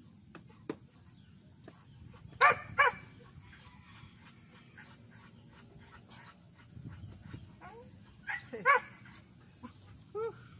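A dog barking: two quick barks a few seconds in, two more near the end and a last single bark, with faint high chirps between them.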